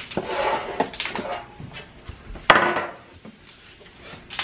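Kitchen handling sounds: a metal baking pan being shifted on the countertop, with rustling and a few knocks, the loudest a sharp knock about two and a half seconds in.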